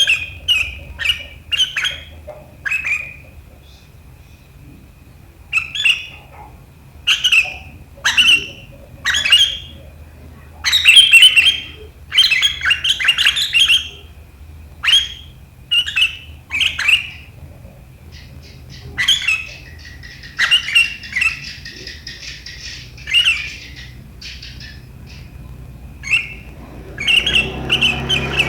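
Sooty-headed bulbul (kutilang) calling in repeated bursts of short, sharp notes, with a run of scratchy, fast chattering (riwikan) about two-thirds of the way through.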